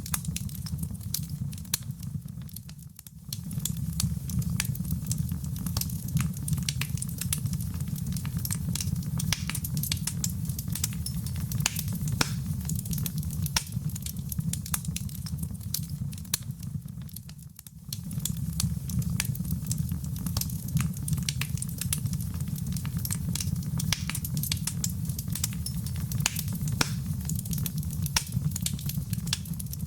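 Wood fire in a fireplace crackling: many sharp pops and snaps over a steady low rumble. The sound dips briefly about three seconds in and again a little past halfway.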